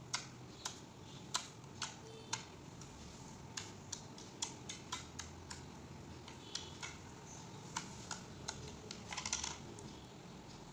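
Clear glitter slime being poked and pressed with fingers, giving faint, irregular sticky clicks and small air-bubble pops, with a short crackly cluster about nine seconds in.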